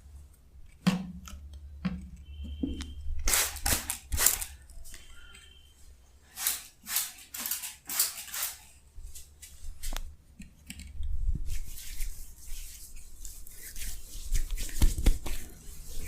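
Hands working over skin in a face and head massage: a run of crisp pats and rubbing strokes, a few with a soft thud, then a longer stretch of rubbing near the end.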